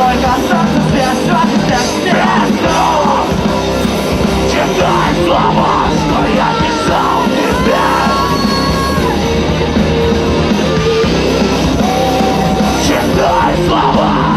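Live rock band playing loudly, with a singer yelling and singing over the band.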